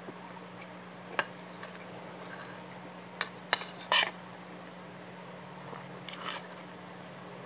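A person chewing close to the microphone, mouth clicks and crunches from a mouthful of chicharon bituka fried rice. They come scattered, the loudest a quick cluster about three and a half to four seconds in, over a steady low hum.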